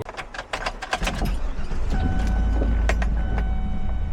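A quick run of clicks and knocks, then a vehicle engine starts about a second in and runs with a steady low rumble. A steady electronic tone sounds on and off over the engine.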